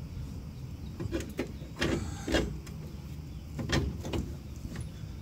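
Steel suspension parts knocking and clinking as a new lowering spindle is handled and seated onto the ball joints. There are a few sharp metal knocks, loudest about two seconds in and again near four seconds, over a steady low rumble.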